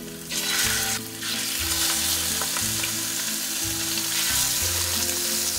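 Seasoned raw chicken breasts sizzling as they are laid into hot olive oil in a stainless steel pan to sear. The sizzle starts about a third of a second in, dips briefly near one second and comes back as more pieces go in.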